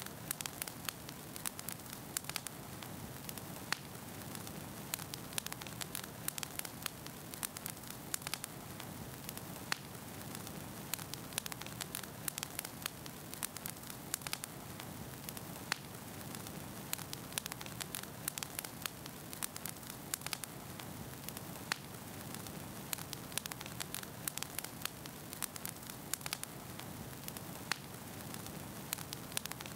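Steady crackling noise: a constant hiss with frequent irregular crackles and a low hum underneath.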